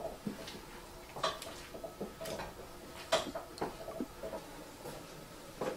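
Light kitchen clatter: scattered clicks and knocks of a utensil against pots and pans on a stove, the loudest a little over three seconds in.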